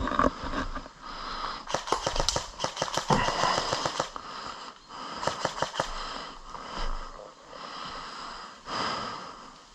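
Airsoft guns firing rapid full-auto bursts: a long rattle of shots about two seconds in lasting about two seconds, then a shorter burst about five seconds in.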